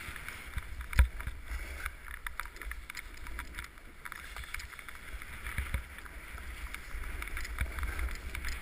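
Snowboard sliding and scraping over snow with a steady hiss, while wind rumbles on the camera's microphone; a sharp knock about a second in is the loudest sound.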